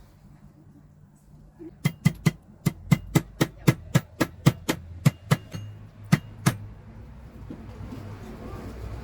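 A quick run of about fourteen sharp knocks, roughly three a second, each with a brief ring, stopping about two-thirds of the way through; a low hum lies underneath.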